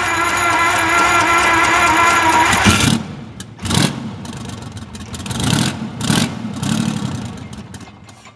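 Detroit Diesel 12V-71 two-stroke V12 diesel starting up. For about three seconds there is a steady whine made of several even tones. Then the engine fires unevenly in several surges of speed that rise and fall, fading toward the end.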